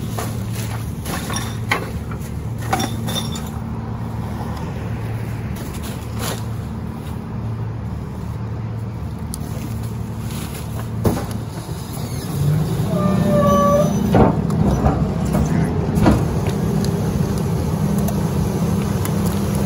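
Rear-loader garbage truck's diesel engine idling, with thuds of trash bags landing in the hopper. About twelve seconds in the engine speeds up and gets louder, with a brief whine, as the packer's hydraulic controls are worked.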